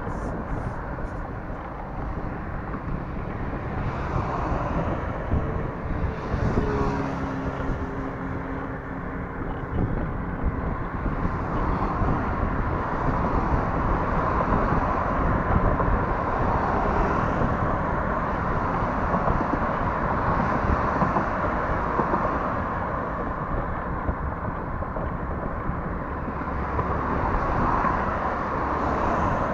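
Road traffic passing close by on a multi-lane boulevard: a steady rush of car tyres and engines. A vehicle's engine drone stands out for a few seconds about six to ten seconds in.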